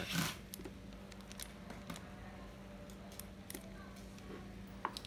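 A short rustle, then faint scattered clicks and light taps of a metal spinning fishing reel being handled and turned over in the hands, over a steady low hum.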